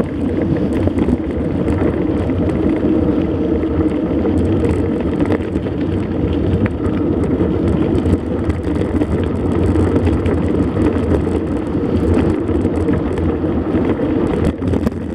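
Steady rumble and wind rush from riding a mountain bike, with scattered small clicks and rattles.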